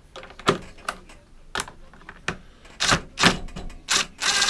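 Plastic lawnmower engine cover knocking and clicking as it is pressed and seated onto the engine, a handful of separate knocks. Near the end a short rattling buzz as a driver runs in a screw that fixes the cover.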